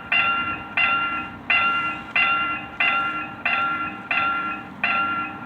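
Railroad level-crossing warning bell ringing in an even rhythm, about three strikes every two seconds, each strike ringing on and fading before the next: the signal that a train is approaching the crossing.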